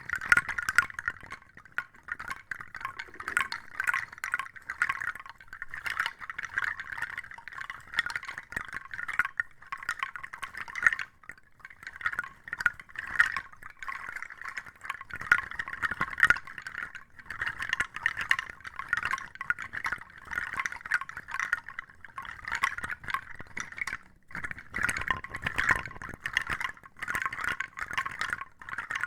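Close-miked ASMR trigger sound: a dense, continuous crackling fizz of many tiny pops, easing off briefly about eleven seconds in and again near twenty-four seconds.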